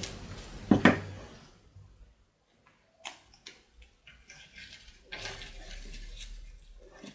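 Two sharp knocks of hard objects set down on a wooden workbench, followed by light clicks and the rustle and creak of a yellow plastic brush handle being handled and flexed.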